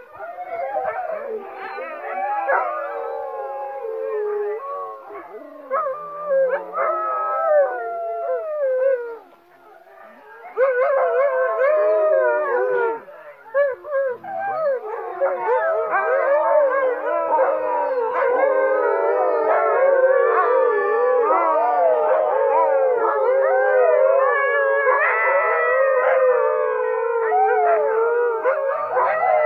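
A group of huskies howling together in chorus, many long, wavering howls overlapping at different pitches. The howling thins out and nearly stops about nine seconds in. It swells back fuller and louder a second or so later and keeps going.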